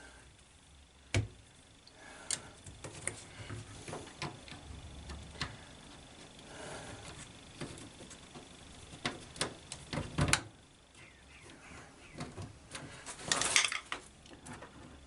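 Hand tools and screws being handled while fitting screws into a washing machine's door-latch mounting: scattered light clicks and taps, one heavier knock about ten seconds in, and a brief burst of clattering near the end.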